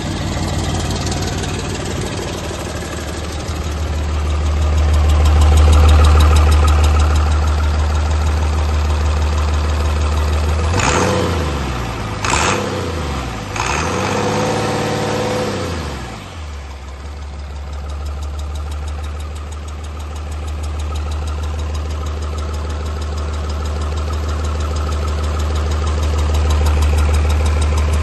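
2022 Cummins L9 8.9-litre turbocharged six-cylinder diesel engine running on a test stand, idling steadily. Around the middle it is revved up and let back down twice.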